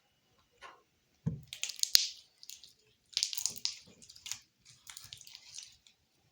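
Sticky slime squelching as it is squeezed and pulled in the hands, in several wet, crackly bursts, with a sharp click about two seconds in. The slime is too runny and sticky and will not firm up.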